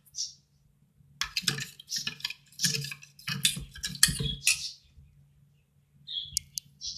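Utensil stirring a glue-and-saline slime mixture in a bowl: a run of irregular scraping strokes for about three and a half seconds, then a pause, with a few short clicks near the end.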